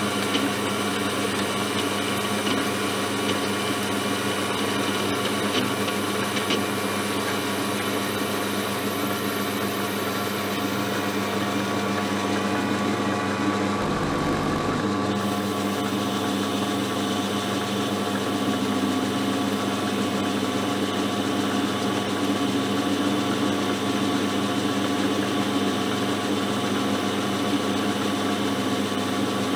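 Small hobby metal lathe running steadily while turning a stainless steel bar, a steady motor and gear whine with several fixed tones. About halfway through the sound briefly changes, then carries on the same.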